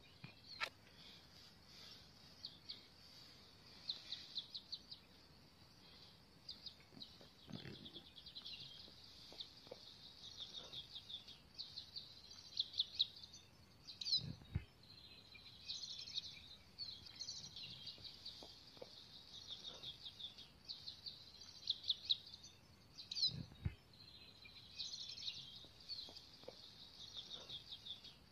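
Birds chirping and trilling continuously in rapid high-pitched runs, with a few soft low thumps scattered through.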